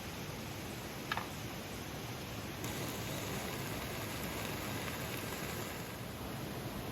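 Steady hiss of outdoor background noise, with one short sharp crack about a second in. From just before three seconds in to about six the hiss grows a little brighter.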